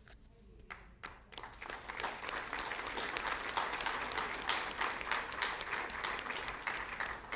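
Audience applauding: the clapping starts about a second in, builds, and then holds steady.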